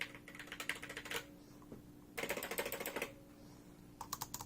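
Anker ultra-compact Bluetooth keyboard's scissor-switch keys being typed on in quick bursts with short pauses between them. The clicking is not that loud, with no rattle.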